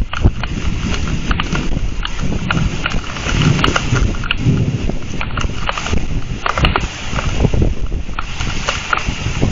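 Thunderstorm wind and heavy rain on an outdoor camera microphone: a loud, gusting rush with many sharp ticks of raindrops hitting the mic.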